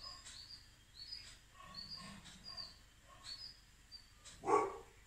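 An animal's repeated short high chirps, about two a second, and a dog barking once about four and a half seconds in.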